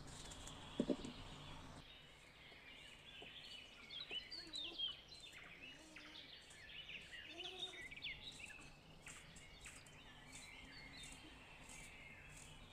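Small birds chirping and twittering, with faint crisp clicks of a knife slicing through a fresh cucumber.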